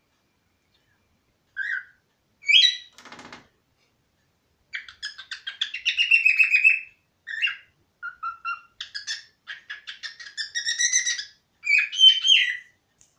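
Cockatiel calling: a couple of single chirps, a short harsh raspy buzz about three seconds in, then a long run of rapid chattering chirps and whistles from about five seconds on.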